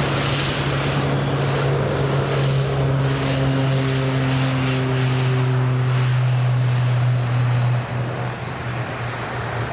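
Twin-turboprop Beechcraft King Air, with Pratt & Whitney PT6A engines, at power on its takeoff roll: a loud, steady propeller drone. Near the end it drops suddenly in level as the aircraft moves away, while a faint high turbine whine falls in pitch.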